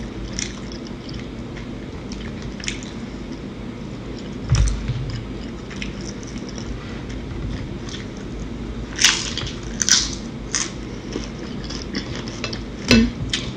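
Close-miked eating: wet chewing and mouth sounds as tortilla chips are dipped in queso and eaten, with a dull thump about a third of the way in and a few sharp crunches about two-thirds of the way through and again near the end.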